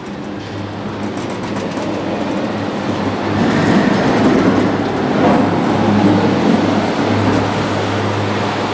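Cable-car gondola rolling into its terminal station, heard from inside the cabin: the wheels and grip run along the station rail with a rolling mechanical noise that grows louder about three seconds in. A steady low hum runs underneath.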